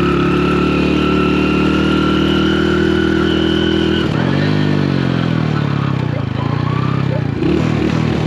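Honda Win motorcycle's small single-cylinder engine running on the move. It holds a steady note for about four seconds, then drops and rises in pitch a few times as the throttle is eased off and opened again.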